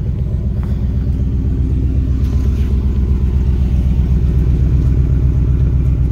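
2006 Jeep Grand Cherokee's 5.7-litre V8 idling steadily, a low rumble from a leaking Magnaflow exhaust. Its front muffler is badly cracked.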